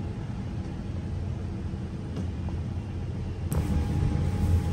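Low steady rumble of background room noise. About three and a half seconds in it grows a little louder and a faint steady hum joins it.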